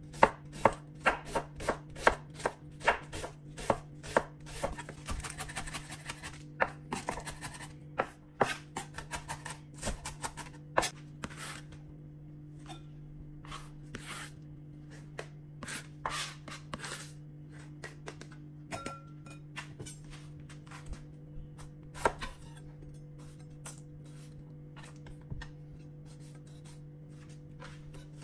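Chef's knife dicing a red onion on a wooden cutting board, sharp knocks about two a second, with a scraping stretch between strikes partway through. After about eleven seconds the chopping stops and only scattered knocks and taps remain as the diced onion is gathered, over a faint steady hum.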